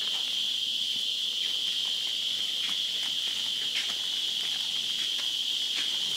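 Steady high-pitched insect chorus: a continuous buzz from many insects, with a few faint clicks scattered through it.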